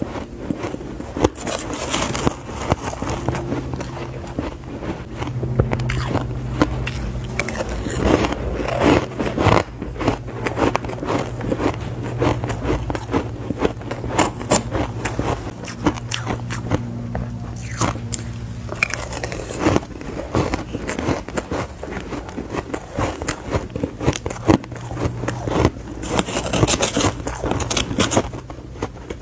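Crunching bites of hard, powdery frozen ice, mixed with a metal spoon scraping and digging through the ice in the bowl. The crunches come as many quick crackling clicks throughout.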